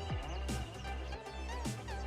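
Background music with a steady beat of drum hits over a held bass line and melody.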